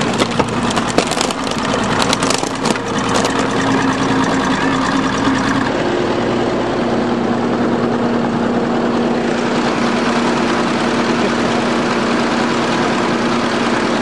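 Bulldozer engine running while the Honda sedan's body crunches and cracks under its tracks for the first few seconds. About six seconds in, the engine's pitch shifts, then it runs on steadily.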